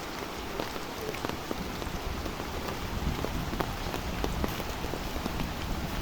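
Steady rain falling on the ground and surrounding surfaces, with many separate drops ticking. A low rumble comes up about halfway through.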